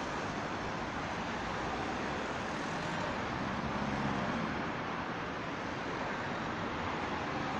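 Steady road traffic noise from cars around a busy roundabout, swelling slightly about four seconds in.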